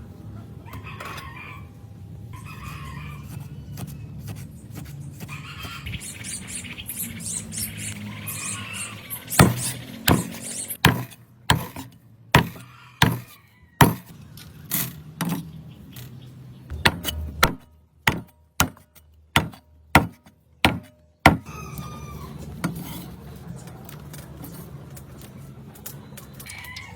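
Knife chopping on a wooden cutting board, about fourteen sharp strikes at a steady pace of a little under one a second, the eel being cut into pieces for cooking. Softer handling noise comes before and after the chopping.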